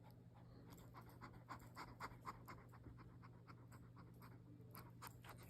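A cat making faint, short, breathy sounds, several a second, in two spells with a pause between, over a low steady hum.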